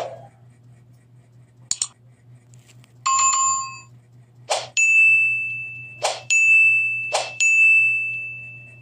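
Two sharp clicks, then a short chime of several tones, then three struck bell-like dings, each ringing on one steady high tone and fading slowly.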